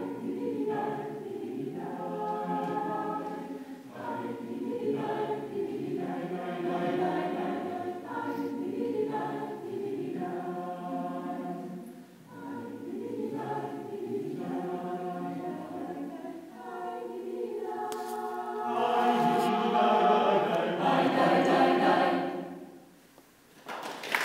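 Mixed choir of women's and men's voices singing, growing louder in a full passage near the end, then ending with a brief hush.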